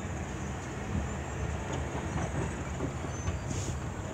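Freight train moving away out of sight: a steady rumble of wheels on rail with faint scattered clicks.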